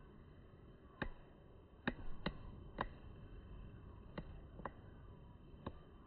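Seven short, sharp clicks at irregular intervals, over a faint steady outdoor background.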